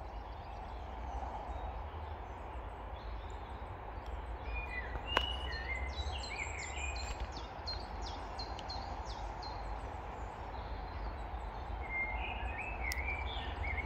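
Small birds chirping in short bursts over steady outdoor background noise, with a single sharp click about five seconds in.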